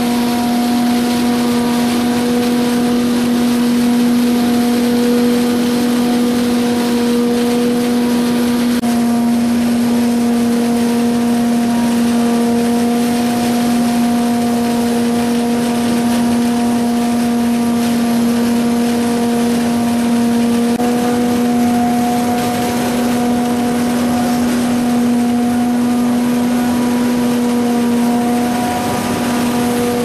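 2005 Pik Rite 290 tomato harvester running while harvesting: a loud, even machine hum with a strong steady tone, its pitch stepping slightly twice.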